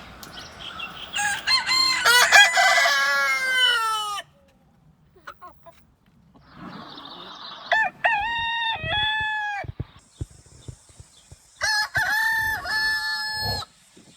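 Roosters crowing: three long cock-a-doodle-doo crows in turn, the first near the start, one in the middle and one near the end.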